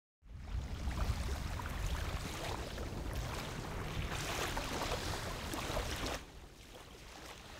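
Shoreline ambience: wind rumbling on the microphone over a wash of water against rocks. It gets much quieter suddenly about six seconds in.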